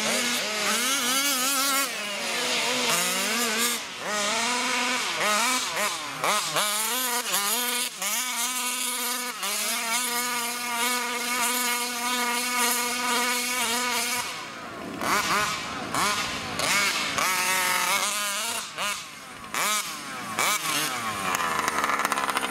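Two-stroke big-bore petrol engine of a 1/5-scale RC truck revving up and down as it is driven. The pitch rises and falls with the throttle, holds high and steady for a few seconds in the middle, and briefly drops off twice later on.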